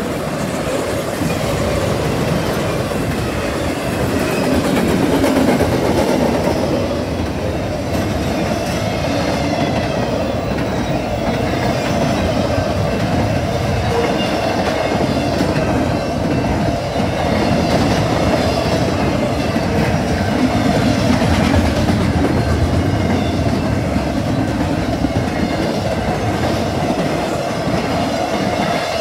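A long BNSF intermodal freight train rolls past close by. Its trailing GE diesel locomotives pass first, then a steady run of double-stack container cars and trailers on flatcars, with continuous wheel clatter and rumble on the rails.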